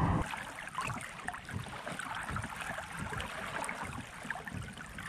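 Water lapping and trickling against a kayak's hull, with many small irregular splashes and ticks.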